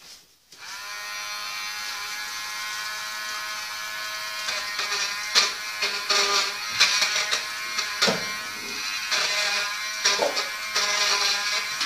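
Handheld immersion blender starts under a second in and runs with a steady whir while blending a melted beeswax-and-oil salve mixture in a small pot. From about four seconds in, its note wavers and irregular knocks come in.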